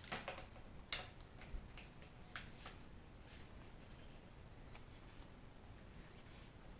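Magic: The Gathering trading cards being handled and slid one behind another in the hand: faint scattered clicks of card stock, a few sharper ones in the first three seconds.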